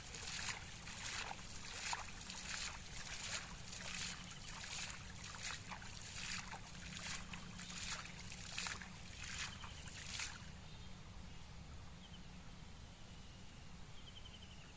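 Water splashing in a steady rhythm of about two splashes a second as a fine white net is swept back and forth through shallow water. The splashing stops about ten seconds in.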